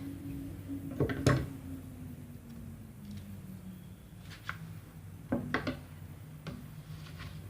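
Sharp knocks of a knife and utensils against a dish while a sweet martabak is cut into pieces: a loud pair about a second in, then a single knock, a quick run of three and one more, over a low steady hum.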